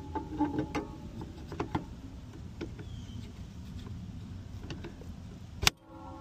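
Light clicks and scrapes of a small metal part being fitted by hand into the aluminum rail of a laminate floor cutter, over a steady low background rumble. A single sharp click comes near the end.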